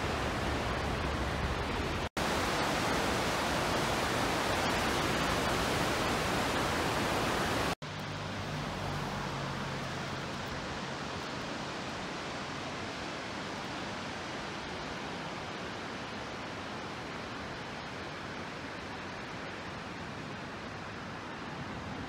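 Steady rushing of a waterfall and river, an even noise with two very short dropouts, about 2 and 8 seconds in; after the second it is softer, with less hiss.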